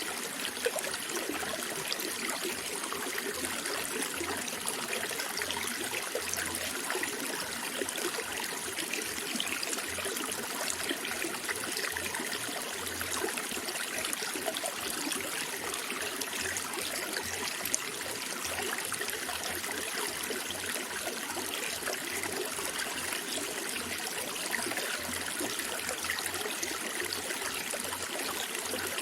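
Running water flowing and trickling steadily, an even rush with no pauses.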